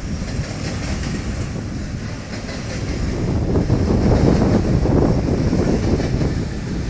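Train on the railroad bridge over the river: a steady low rumble that swells about halfway through, with wind on the microphone mixed in.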